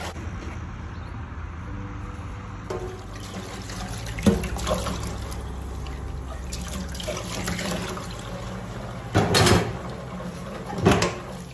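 Kitchen tap running into a stainless steel sink while dishes are rinsed, with a sharp knock about four seconds in and two louder bursts near the end as pots and pans are handled under the water.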